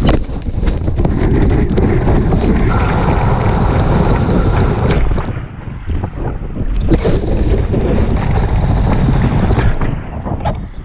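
Kiteboard skimming over choppy water: water rushing and spray slapping against the board, with many short sharp hits, under heavy wind noise buffeting the microphone.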